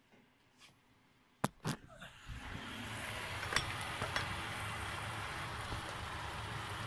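Near silence, then two sharp knocks as the camera is handled, and from about two seconds in a steady sizzle of diced lamb offal and onion frying in a non-stick pan, with a couple of light clinks.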